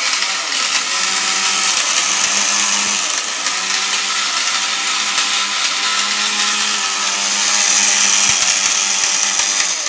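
Jaipan mixer grinder motor running steadily with its small steel dry-grinding jar, grinding hard brick chunks into fine powder. It gets slightly louder near the end.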